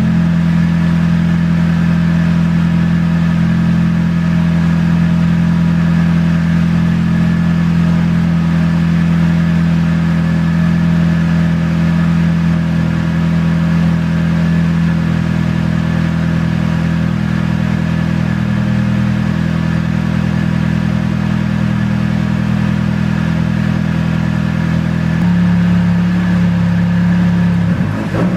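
Nissan SR20DET turbocharged 2.0-litre four-cylinder engine idling steadily after a fresh start. Its tone shifts slightly near the end.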